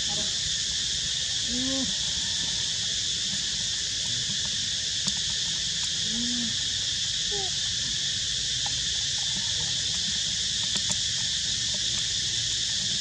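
Steady high-pitched insect chorus shrilling without a break, with a few faint short calls in the background about two and six seconds in.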